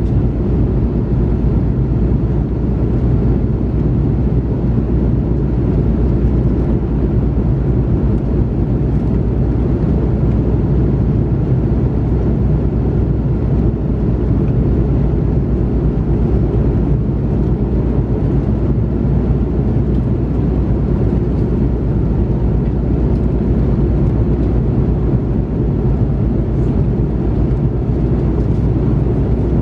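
Steady low cabin noise of an Airbus A330-300 in the climb, heard from an economy seat: the hum of its two Pratt & Whitney PW4168A turbofans mixed with airflow noise. It stays even throughout, with most of the sound low in pitch.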